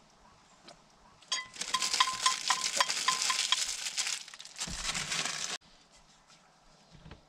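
Crinkling and rustling of plastic wrap as individually wrapped processed cheese slices are peeled open, a dense crackle with many small clicks lasting about four seconds that cuts off abruptly.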